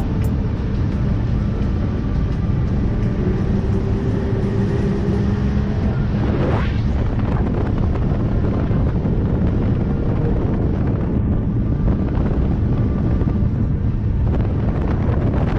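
Motorboat running at speed, its engine a steady drone under heavy wind noise on the microphone, with a brief swish of water or spray about six seconds in.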